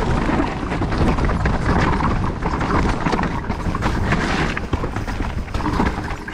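Mountain bike ridden down a wet, rough downhill trail: continuous rattling and knocking from the bike over roots and ruts, tyre noise in the mud, and a heavy low rumble of wind on the helmet microphone.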